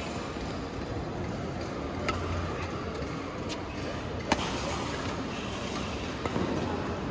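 Badminton rally: rackets striking the shuttlecock in sharp hits every second or two, the loudest about four seconds in, over a steady hall background.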